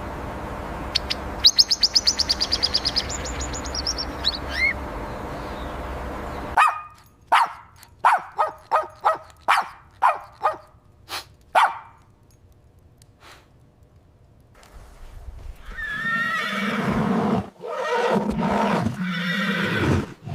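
Animal calls in several separate bursts: a quick run of high chirps over background noise, then about ten short calls at roughly two a second, then longer, lower calls near the end.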